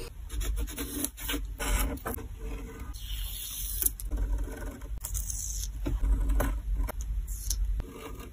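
Washi tape being peeled, pressed down and trimmed with a pen-style craft knife on card: a string of short scrapes, rips and clicks with brief pauses between them.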